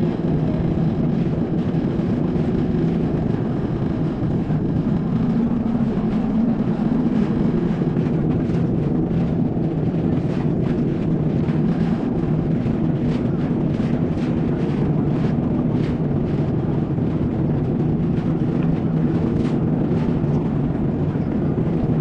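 Jet ski engine running steadily under way, a low even hum over rushing wind and water, with frequent short slaps starting about a third of the way in.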